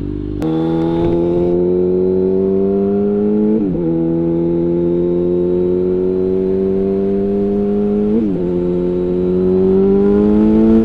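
Yamaha FZ8 motorcycle's inline-four engine pulling away and accelerating. The revs climb steadily, with two upshifts, one about three and a half seconds in and one about eight seconds in, each dropping the pitch before it climbs again.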